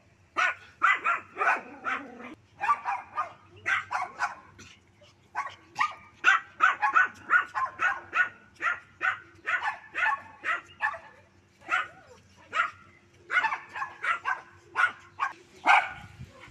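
Small dogs barking: short, sharp, high-pitched barks in quick runs of two to three a second, with a brief pause about five seconds in.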